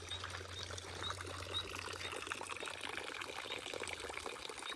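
Water running and trickling steadily, with a faint high chirp repeating about twice a second.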